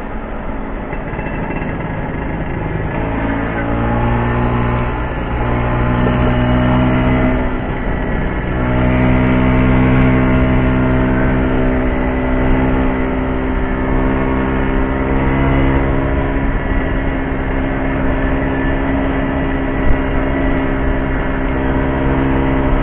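Vespa scooter engine running under way, its note dipping and rising a few times in the first third, then holding a steady drone for the rest.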